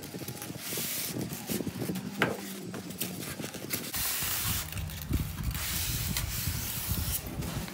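Styrofoam packing blocks scraping and rubbing against the cardboard box as they are pulled out by hand, with small clicks and rustles early on and heavier scraping from about four seconds in.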